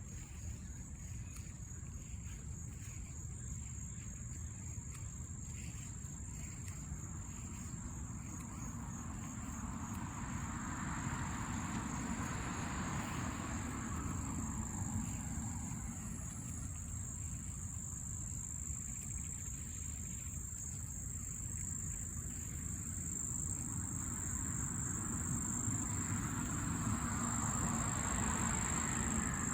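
A steady, high-pitched insect drone over a low rumble, with two slow swells of noise that build and fade like passing vehicles: one about a third of the way in, the other near the end.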